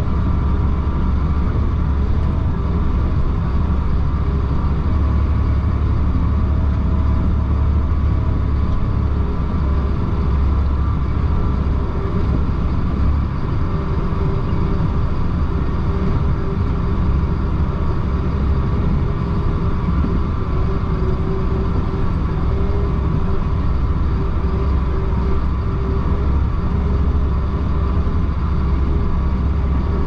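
Chenglong concrete mixer truck's diesel engine running under way, heard from inside the cab: a steady low rumble with a few steady tones above it.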